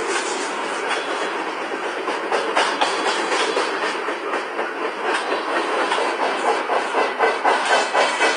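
Container freight train rolling past close by: a steady rushing rumble with wheels clacking over the rail joints. The clacks grow more marked in the second half, at about three a second.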